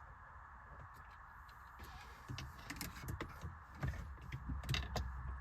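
Scattered light clicks and taps of a pick tool working at the plastic retaining clips of a steering-wheel airbag, over a steady background hum; the clicks start about two seconds in.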